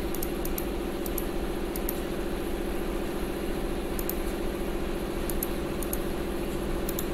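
A steady machine hum that holds one pitch, like an idling motor or engine. Light clicks, mostly in pairs, come at uneven gaps over it.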